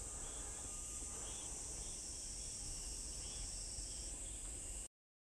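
Steady high-pitched chorus of night insects in summer, with faint chirps repeating over it; the sound cuts off abruptly near the end.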